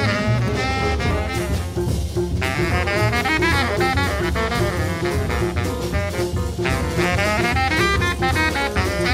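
Background jazz music: horns playing melodic phrases over a drum kit.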